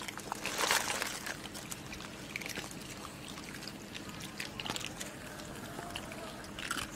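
Outdoor ambience with a steady low hum and scattered small clicks and rustles. A louder rustle comes about a second in.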